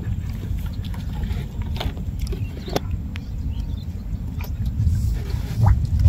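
A low steady rumble with a few light clicks and ticks scattered through it as a nylon gill net and the small fish caught in it are handled in a wooden boat.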